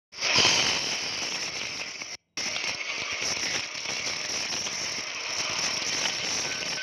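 Horror-film soundtrack holding a steady, dense, high buzzing hiss that cuts out for a moment about two seconds in.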